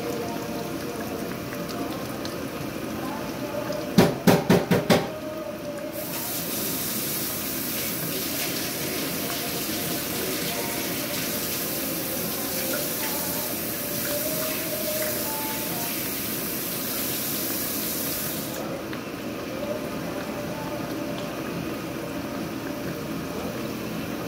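Fish cakes frying in oil in a pan. About four seconds in come five quick sharp knocks, and from about six seconds a louder steady hiss starts, cutting off abruptly near eighteen seconds.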